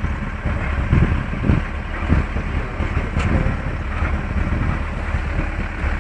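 Safari vehicle's engine running with a steady low rumble, and a few low thumps in the first two to three seconds.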